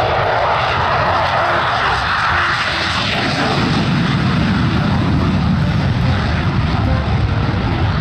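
F-16 fighter jet taking off on afterburner: a loud, continuous jet roar that deepens into a low rumble over the second half as the jet passes and climbs away.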